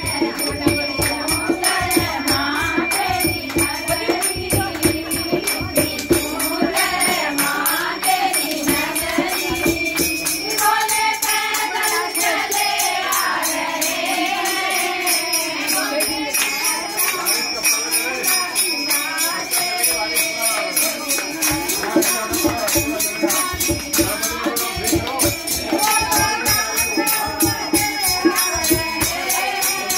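A mixed group of voices singing devotional verses together in unison, over a steady, evenly repeating percussion beat.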